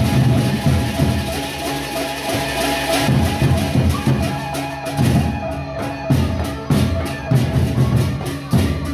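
A Sasak gendang beleq ensemble playing: large double-headed barrel drums beaten in interlocking patterns under cymbals and ringing gongs. From about five seconds in, sharp cymbal strokes keep a quick, even pulse over the drums.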